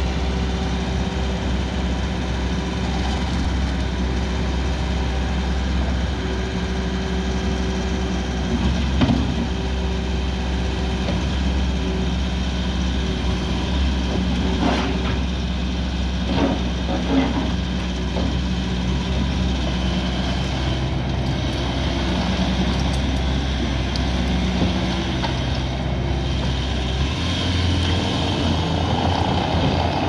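Bobcat T590 tracked skid steer loader running steadily while it drives and turns with its bucket raised, with a few short knocks along the way. Its engine pitch steps up about three seconds before the end.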